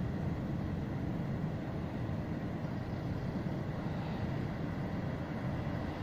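A steady low roar of wind and distant ocean surf, with no distinct wave crash standing out.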